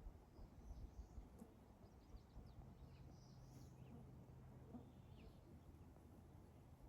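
Near silence outdoors, with a few faint, brief bird chirps spread across a few seconds.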